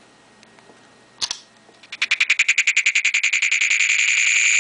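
A single knock about a second in. Then an iPhone on iOS4 gives its odd electronic noise: a rapid high pulsing, about a dozen pulses a second, that smooths into a steady high two-pitched tone. The owner believes an app not working with iOS4, Ustream Broadcaster, causes it.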